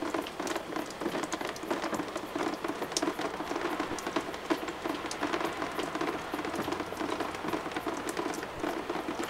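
Leaking water splashing and dripping steadily: a constant patter of many small drops that stays even throughout.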